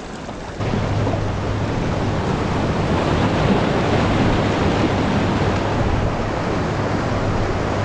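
Small sea waves washing and breaking over shoreline rocks, a steady rushing wash that starts abruptly just over half a second in.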